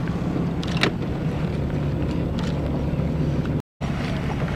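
Boat engine running steadily at low speed, with wind and water noise over it; the sound cuts out for an instant near the end.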